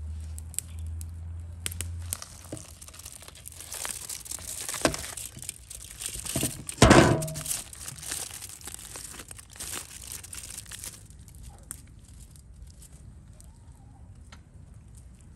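Aluminium foil crinkling and wet mud being pressed and patted by hand around a foil parcel on a metal tray, with one loud thump about seven seconds in. The handling sounds die down to quieter, scattered touches in the last few seconds.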